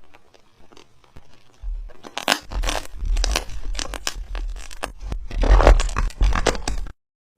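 Slime being squeezed and pressed by hand close to the microphone: a run of crackling, popping clicks that grows much louder about two seconds in, then cuts off abruptly near the end.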